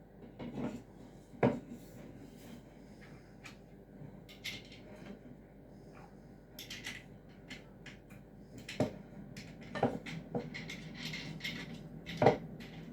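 Scattered knocks, clicks and light clatter of the parts of a cross-stitch embroidery stand being handled and fitted together during assembly. The sharpest knocks come about a second and a half in and near the end.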